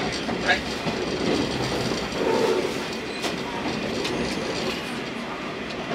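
Diesel railcar running along the line, heard from inside the carriage: a steady rumble of engine and wheels, with occasional clicks as the wheels cross rail joints.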